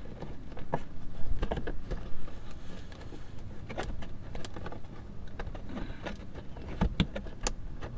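Scattered plastic clicks and knocks as the clips on the back of an old Jeep Wrangler light housing are squeezed and the housing is worked loose from its mount.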